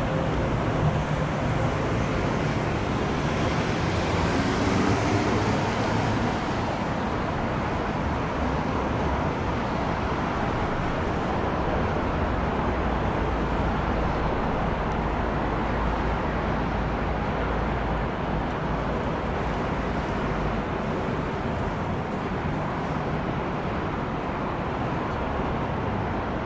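Steady roar of engine and traffic noise, with a deeper rumble swelling about halfway through.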